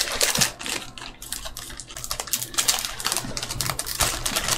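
Trading cards and pack wrapping being handled by hand: a busy, irregular run of light clicks and snaps.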